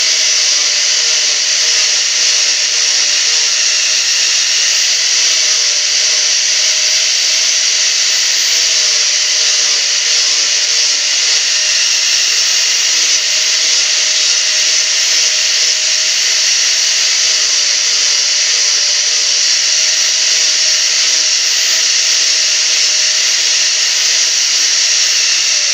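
Electric angle grinder running continuously, its disc grinding and shaping a small block of wood, a steady whine under the rasp of the abrading wood.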